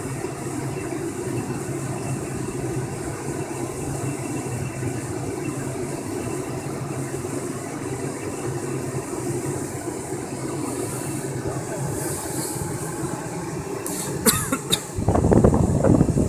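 An air blower's motor runs steadily, pushing air down a hose to inflate a clear plastic water walking ball. A few sharp clicks come near the end, followed by louder, uneven rustling noise.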